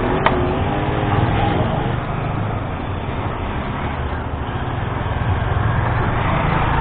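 Motorcycle engine running steadily under a thick rush of wind and road noise, with a brief click about a quarter second in.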